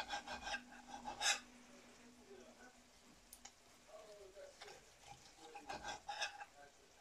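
Kitchen knife sawing through a crisp bacon-wrapped chicken roll and scraping on the plate beneath it: short rasping strokes in the first second and a half, then again about five to six seconds in.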